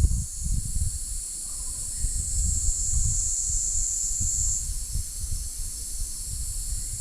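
Mountain insect chorus: a dense, steady, high-pitched buzzing, with one louder insect call joining about two seconds in and cutting off abruptly halfway through. Gusty wind rumbles on the microphone underneath.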